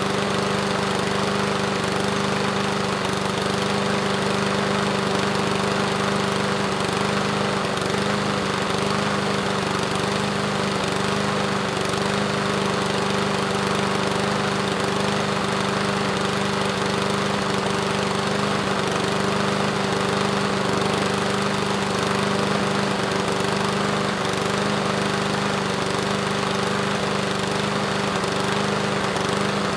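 Lawnmower engine running at a steady speed, an even drone that holds one pitch without revving up or down.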